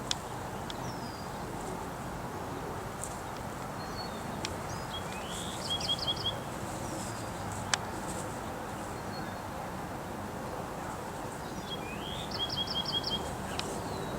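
A songbird sings the same short phrase twice, about seven seconds apart: a rising note followed by a quick run of about five high notes, over a steady outdoor background hiss. A sharp click stands out about eight seconds in.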